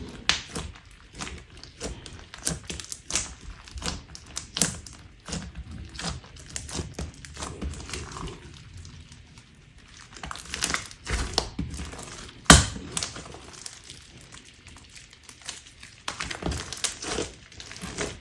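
Crunchy slime being squeezed and poked by hand, giving irregular crackles, snaps and squishy pops, with one sharper, louder snap past the middle.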